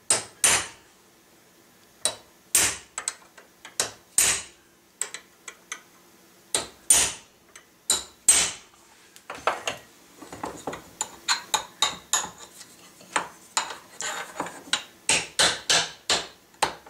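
Hammer tapping a steel punch on the head of a cut nail seated in a drilled steel plate in a vise: sharp metallic strikes with a short ring, one or two a second at first, then quicker from about ten seconds in. The punch is drawing the nail head's edges out into a sharp-cornered pyramid shape.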